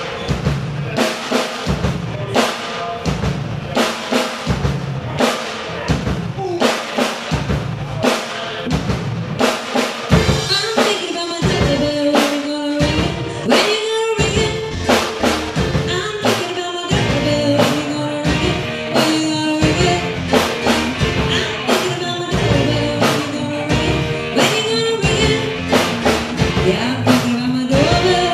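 Band music: a drum kit keeping a steady beat under a melody line.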